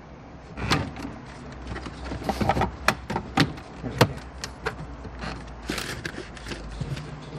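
Hyundai Getz plastic dashboard trim giving off a run of irregular sharp clicks and knocks as leftover clips are pulled from the radio opening and the centre fascia panel is pressed back into place.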